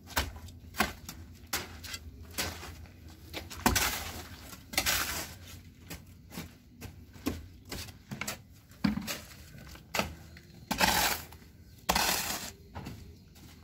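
Hoe scraping and chopping through a pile of mortar on a concrete slab: irregular gritty strokes about once a second, with a couple of longer scrapes. The mortar had stiffened overnight and is being re-mixed with added cement.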